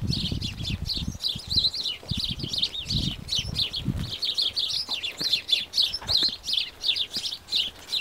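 Small songbirds in a hedge chattering, with many quick chirps overlapping. Wind rumbles on the microphone for the first half.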